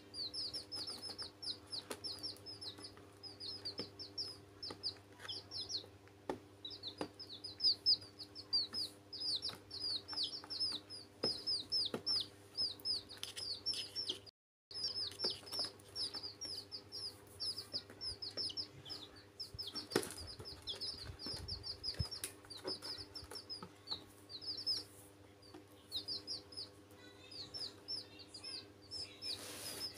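Domestic chicks peeping almost without a break, a fast run of high, downward-sliding peeps, with a few light taps among them over a faint steady hum. The sound cuts out for a moment about halfway.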